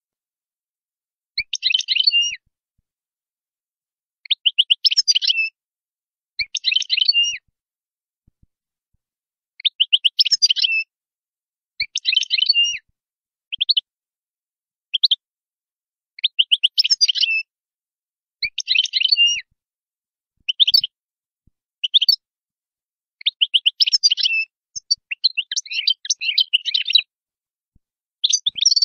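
European goldfinch singing: about a dozen short bursts of rapid, high twittering notes, each up to about a second long, with brief silent gaps between them.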